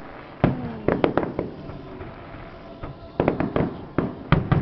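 Fireworks display: aerial shells bursting in sharp bangs, each trailing off in an echo. There is a quick cluster of about five bangs in the first second and a half, a lull, then another cluster of about six in the last second and a half.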